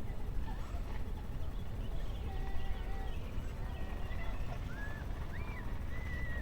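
Off-leash dog park ambience: a steady low rumble with several faint, high, drawn-out dog whines, the longest one near the end.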